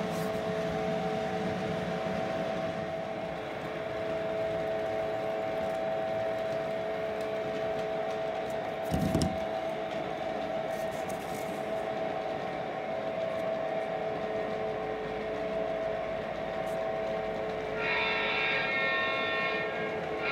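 O-gauge model train, a Santa Fe SD60M diesel pulling tank cars, running on three-rail track with a steady hum from its motors and wheels, and a single thump about nine seconds in. Near the end the locomotive's electronic sound system blows its horn.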